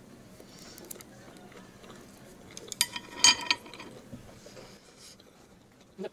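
Cutlery and dishes clinking during a meal: small scattered taps, with a cluster of sharp, briefly ringing clinks about three seconds in.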